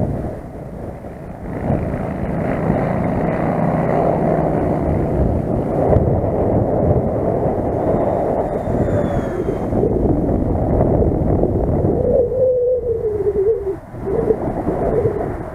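Twin electric ducted fans of a Dynam A-10 Warthog RC jet whining in flight, the pitch falling twice as the model passes, under heavy wind rumble on the microphone.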